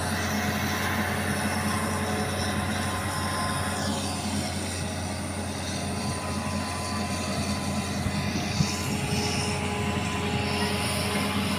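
Engine running steadily, a constant low drone with a steady hum and no change in speed.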